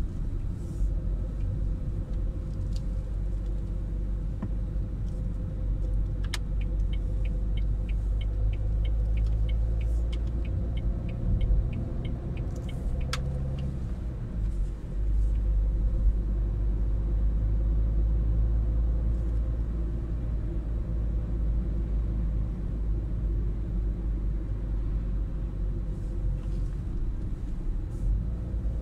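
Steady road and engine rumble of a car heard from inside the cabin while driving. A quarter of the way in, a regular ticking of about three clicks a second runs for around seven seconds, typical of the turn indicator after leaving a roundabout.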